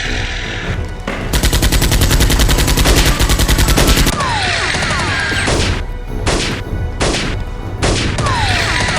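Gunfire sound effects: a rapid automatic burst lasting about three seconds, then about four single shots spaced under a second apart, over background music.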